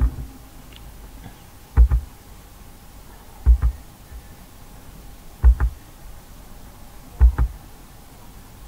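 Clicking at a computer: four quick double clicks, about one every 1.8 s, each with a dull thump. Each click adds another dotted hidden line to the drawing on screen.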